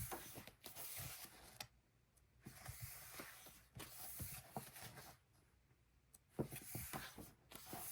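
Photo prints being handled and flipped through: intermittent soft rustling and sliding with small clicks, in several short spells separated by brief pauses.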